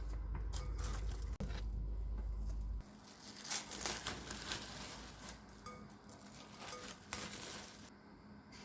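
A low steady hum cuts off about three seconds in. Then come light, irregular crinkling and tapping, like something being handled, loudest just after the hum stops and fading toward the end.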